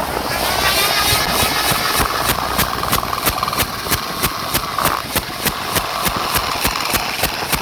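A motor or engine running with a steady whine that rises in pitch over the first second, overlaid with a regular ticking of about three ticks a second.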